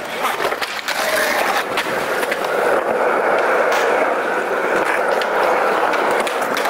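Skateboard wheels rolling over rough asphalt: a steady rolling rumble with a few sharp clicks along the way.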